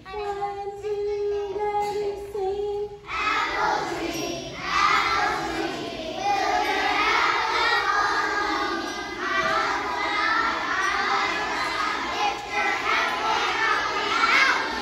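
A group of young children singing together after one steady held note in the first three seconds.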